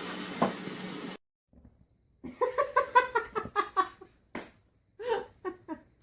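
High-pitched laughter in quick, rhythmic bursts, starting about two seconds in after a cut, with a second short bout near the end.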